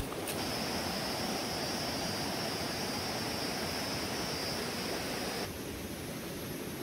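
Rainforest river running over shallow rapids, a steady rush of water, with a steady high insect buzz over it. About five and a half seconds in, both give way abruptly to a quieter wash of water.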